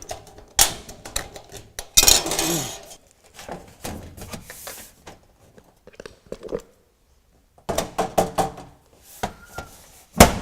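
Sheet-steel roofing shingle being cut and handled: an irregular run of sharp metallic clicks and clanks, with a longer scraping rasp about two seconds in.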